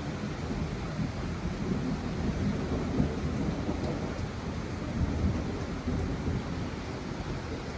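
Heavy summer rain pouring steadily onto dense garden foliage, an even hiss of rain over a constant low rumble.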